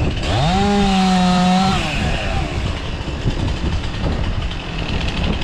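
Chainsaw engine revving up to full throttle, held high for about a second and a half, then dropping back and running on at lower speed.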